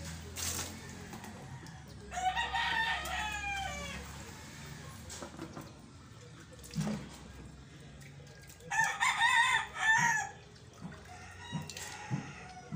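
A rooster crowing twice, each crow about two seconds long, wavering and falling away at the end. A brief splash of water poured from a dipper comes near the start.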